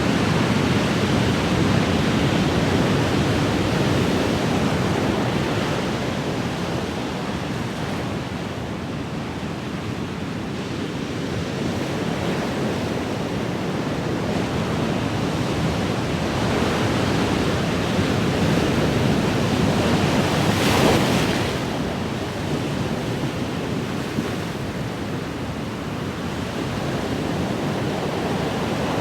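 Ocean surf: waves washing in with a continuous rushing hiss that swells and ebbs over several seconds, one wave breaking more sharply about two-thirds of the way through.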